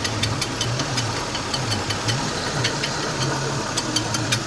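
2008 Chevy Malibu's 3.5-litre V6 idling with a steady hum and repeated light clicks from the accessory belt and pulley area: the scraping noise that is still there after a new upper idler pulley, which the owner suspects comes from a pulley bearing.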